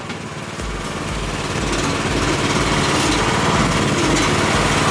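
Small gasoline engine of a VICSEC mini excavator running, growing louder over the first two seconds and then running steadily with a low, even pulse.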